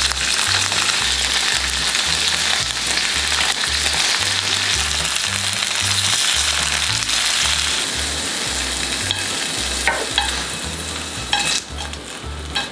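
Starch-coated tofu sticks frying in hot oil in a pan: a steady sizzling hiss, with a few light clicks near the end.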